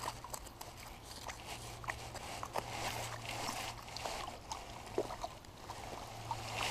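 A small hooked fish splashing at the water's surface as it is drawn in and scooped into a landing net, with light scattered ticks and rustles from the net and bankside plants.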